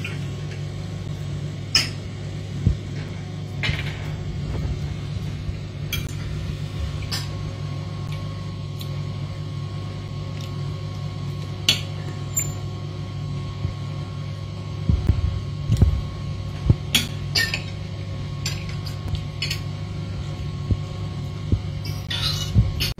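Knife and fork clinking and scraping on a plate in scattered sharp clicks, several in quick succession about two thirds of the way in and again near the end, over a steady low hum.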